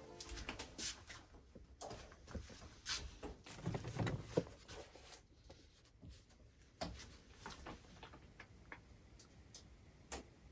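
Scattered light knocks and clicks of a mug and utensils being handled, with a heavier low thump about four seconds in.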